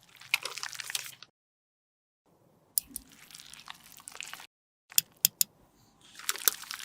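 Close-up crackly scraping and crunching of makeup being worked, heard as three short separate clips with dead silence between them; in the third, three sharp clicks come close together before the crackling resumes.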